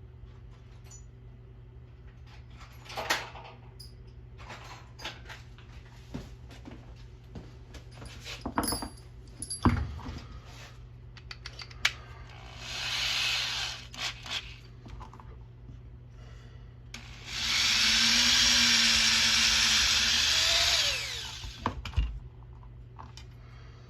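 Electric drill running in two bursts, a short one and then a louder one of about four seconds that winds down with a falling whine. Between them come clicks and knocks as the drill chuck and bit are handled.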